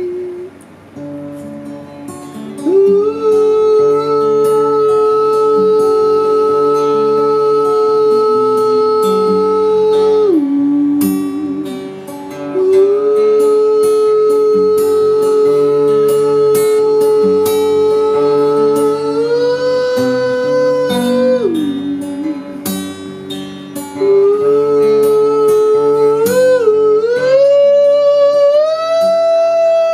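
Acoustic guitar strummed under long, wordless held vocal notes: three notes sustained several seconds each, sliding down as they end, the last one climbing higher near the end.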